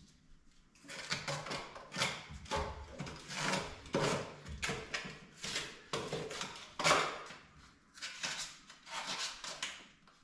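Old spray foam insulation being scraped off a wooden basement rim joist, in repeated scraping strokes about two a second, starting about a second in.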